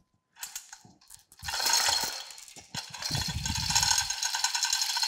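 Overhead chain hoist being worked to lower a heavy cast-iron saddle onto the machine's bed ways. After a few scattered clicks, its chain rattles and clicks rapidly and without a break from about a second and a half in.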